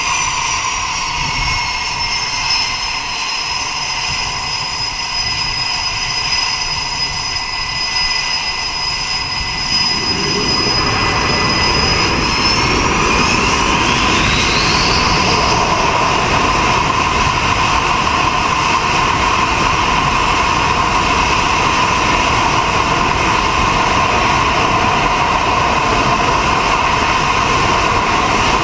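A carrier fighter jet's jet engines run with a steady high whine. About ten seconds in they are brought up to full military power: the sound grows much louder and heavier, and the whine rises in pitch, before holding steady. This is the full-power run-up on the catapult before launch.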